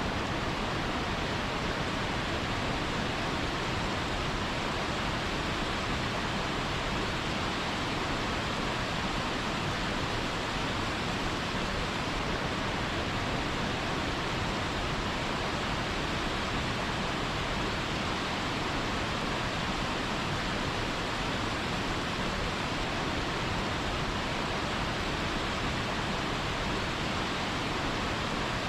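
Natural waterfall: a steady, unbroken rush of falling water.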